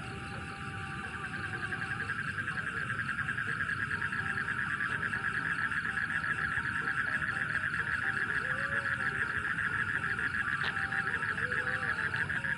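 A night animal's call: a fast, even pulsed trill that swells in over the first couple of seconds, then holds steady and loud, like a frog or night insect calling close by.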